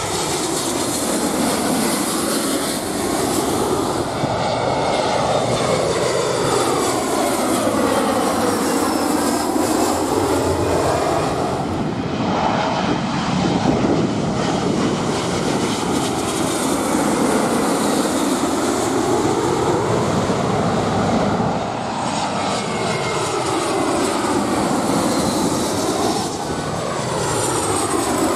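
Boeing 777 and then Boeing 737 jet airliners on final approach with gear down, passing low overhead. Their turbofan engines make a steady loud rushing noise that sweeps down and back up in pitch as each one goes by.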